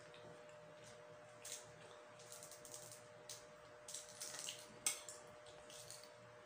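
Quiet scattered crackles and clicks of eating: shell being peeled off a balut egg and a spoon scraping in a cardboard food box, with one sharper click about five seconds in. A faint steady hum runs underneath.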